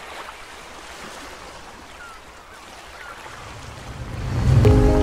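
Steady outdoor rushing noise with a few faint, short chirps. About four seconds in, a low rumble swells up and music with held notes comes in.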